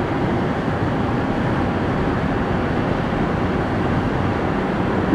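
Airbus A340-300's four CFM56 turbofan engines at climb power after takeoff: a steady, even jet rumble with no change in level.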